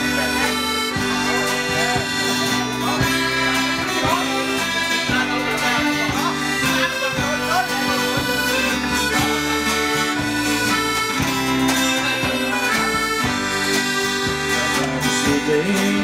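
Live band playing the instrumental intro of a ballad: accordion leading over electric bass, acoustic guitar and drums with a steady beat.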